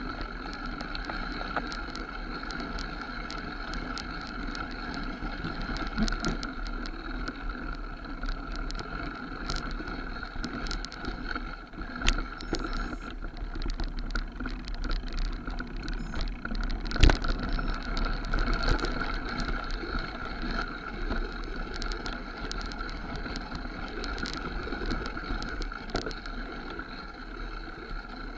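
Mountain bike riding fast down a dirt forest trail, heard from a camera mounted on the rider or bike: tyres rolling over dirt and roots under a steady rushing noise, with the bike rattling and clicking all the way, and one sharp knock about seventeen seconds in.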